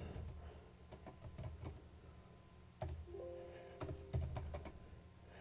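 Faint, irregular keystrokes on a computer keyboard as a command is typed out, a few keys at a time with short pauses between.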